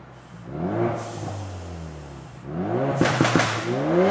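Ford Focus RS's 2.3-litre turbocharged four-cylinder revved twice with the car standing still. The first rev climbs and then falls away slowly. On the second, about two and a half seconds in, the exhaust pops and crackles as the revs drop.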